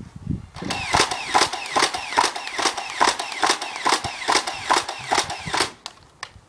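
Nerf Stampede ECS battery-powered blaster firing on full auto: a fast string of mechanical clacks, each with a falling whine, about three shots a second, for about five seconds before it stops.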